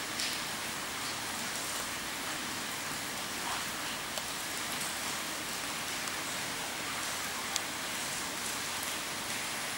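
Steady hiss with a few faint ticks.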